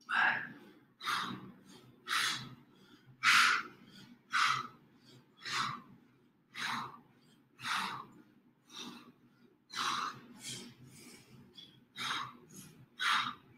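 A person's hard breathing from exertion: short, forceful breaths about once a second, keeping pace with the reps of an exercise.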